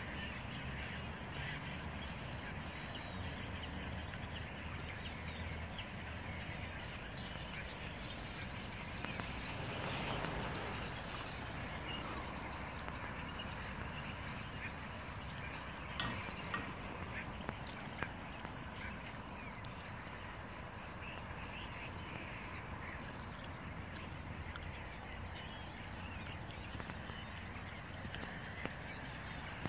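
Birds chirping on and off with short, high, falling calls, more of them near the end, over a steady low background rumble.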